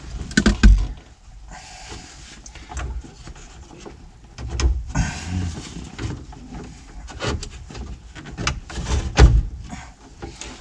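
Irregular knocks, clicks and scraping as parts are handled and pushed into a truck dash during a stereo install, with sharper knocks about half a second in and about nine seconds in.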